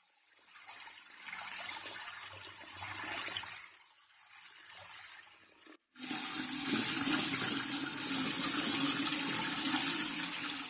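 Tap water running onto scramberries in a steel colander as they are washed, a hand stirring them through the stream. The water breaks off for a moment a little past halfway, then returns louder and steadier.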